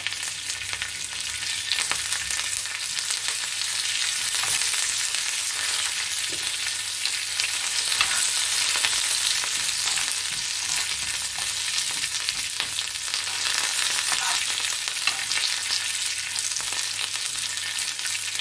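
Curry leaves, mustard seeds and split black gram sizzling in hot oil, a South Indian tempering, with scattered small pops. The sizzle builds over the first few seconds and then holds steady.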